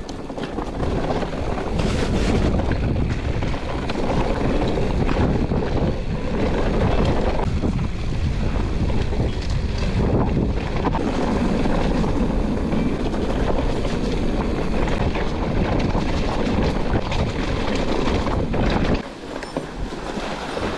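Wind rushing over the microphone of a camera on a moving mountain bike, with rolling noise from the ride underneath. The noise drops away suddenly near the end.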